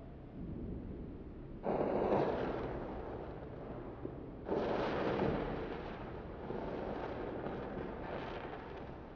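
Whooshing rush of flame as match heads flare up, twice, each starting suddenly and dying down over a couple of seconds, followed by a steadier rushing burn with small swells.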